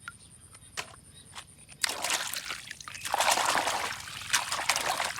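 Water splashing and trickling as toy vehicles are washed. A few light clicks come first; the water starts about two seconds in and is loudest a little after the midpoint.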